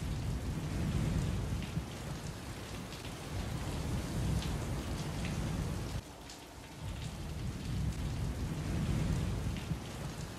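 Steady rain with low rolling thunder that swells and fades, with scattered sharp drip-like ticks. The ambience drops abruptly about six seconds in and then builds again.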